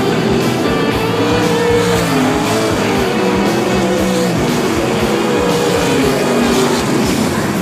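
Rock song with a steady drumbeat and melodic guitar lines, over the engines of winged sprint cars running on a dirt oval.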